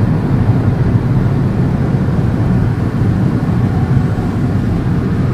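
Steady road noise heard from inside a car's cabin at highway speed: a low rumble of tyres and engine.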